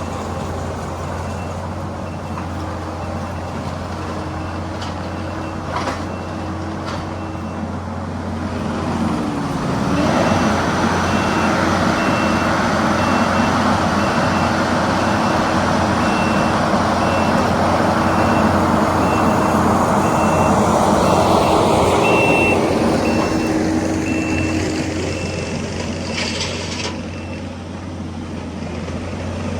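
Kubota SVL compact track loader running with a steady backup alarm beeping as it reverses. Its diesel engine rises under load about a third of the way in and eases off again near the end.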